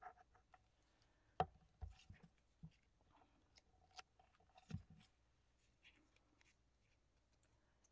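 Faint scattered clicks and taps of hands gluing two small paper circles together on a tempered-glass craft mat, with a plastic glue bottle set down; the sharpest tap comes about a second and a half in.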